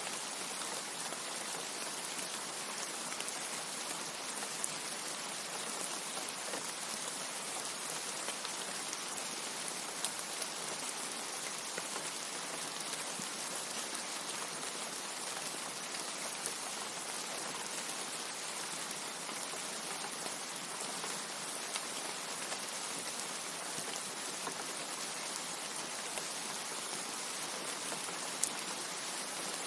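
Steady heavy rain: an even, unbroken hiss, with now and then a single sharper drop tick.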